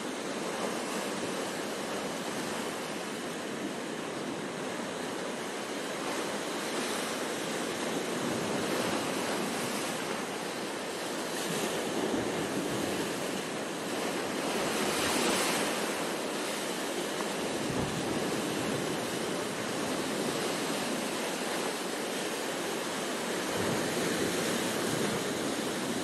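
Sea surf breaking and washing over shoreline rocks: a continuous rushing wash that swells and eases, loudest about halfway through.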